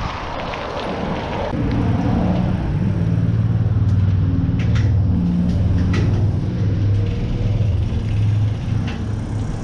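Road traffic rumbling, heard as a steady low drone with a few held low tones booming inside a concrete underpass beneath the road, setting in about a second and a half in as the wind noise drops away. A few light clicks sound over it.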